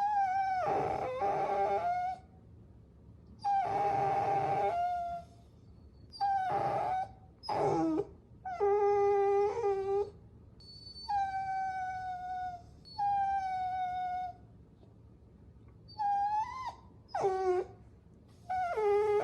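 Puppy whining: about ten high, drawn-out whines, each up to a second and a half long, separated by short pauses. Some hold a steady pitch and others bend up or fall away at the end.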